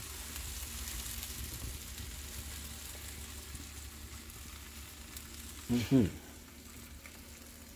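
Chicken-heart skewers in a foil tray and kiełbasa on a grate over hot charcoal, sizzling steadily, a little stronger in the first couple of seconds. About six seconds in, a brief loud falling vocal sound cuts across it.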